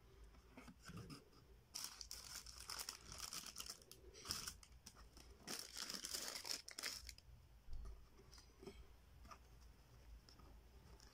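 Thin tissue paper in a shoe box crinkling and rustling as hands fold it back, in a run of bursts over about five seconds, then quieter handling.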